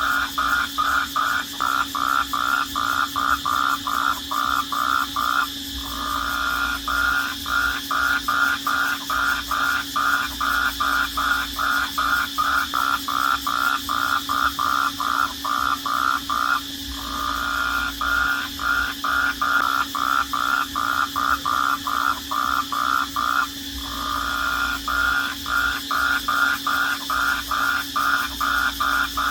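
Night chorus of calling animals: a loud rhythmic pulsed call repeating about two to three times a second, which three times runs together into a brief continuous trill, over a steady high insect-like drone.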